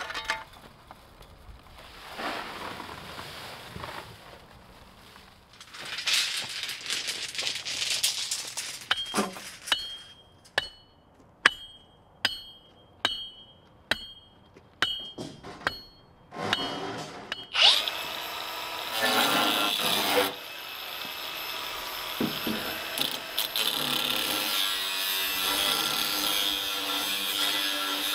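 About a dozen sharp strikes, roughly two a second, each with a short ring. Then, from about two-thirds of the way in, a power tool spins up and runs steadily.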